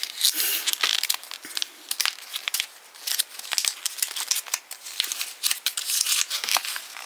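A small folded paper collector's leaflet being unfolded by hand, crinkling and crackling in a quick, irregular run of sharp rustles close to the microphone.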